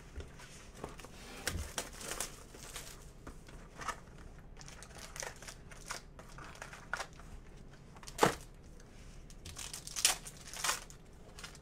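Panini Select basketball card pack being handled and torn open: the wrapper crinkles and tears in short irregular rustles. The sharpest crackle comes about eight seconds in.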